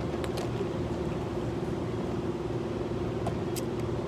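A steady machine hum holding one even pitch, with a few faint clicks over it.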